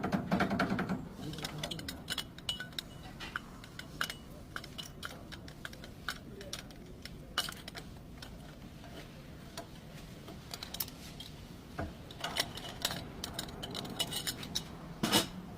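Light metallic clinks and knocks at irregular intervals, from metal tools and parts being handled, busiest at the start and again near the end.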